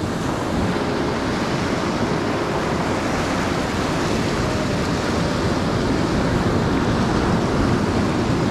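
Steady rush of ocean surf washing on a beach, mixed with wind.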